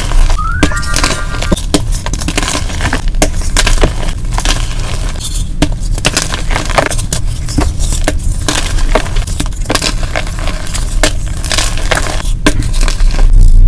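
Soft blocks of yellow-dyed gym chalk crushed and crumbled by hand over a bowl of chalk powder: dense, rapid crunching and crumbling, played back sped up, getting louder near the end.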